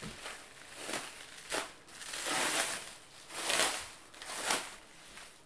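Black plastic wrapping on a parcel crinkling and rustling as hands pull and tear it open, in a series of rustling bursts, the loudest around the middle.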